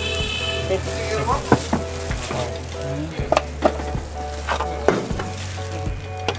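Kue cubit batter sizzling in a hot kue cubit mould pan, with a few sharp metal clinks against the pan.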